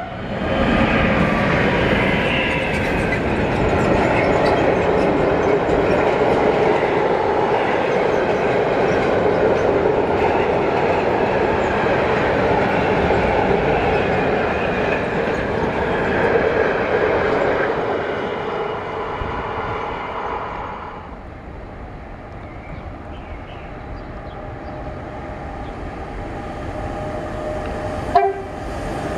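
A freight train headed by two ÖBB Taurus electric locomotives passes at speed, its wheels loud on the rails as the long line of wagons goes by. The noise fades away as the train recedes about 20 seconds in. Near the end it cuts abruptly to the sound of another freight train approaching.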